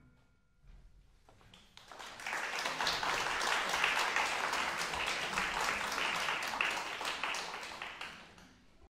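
Audience applauding. After a couple of seconds of near silence the clapping starts, holds steady, and fades out near the end.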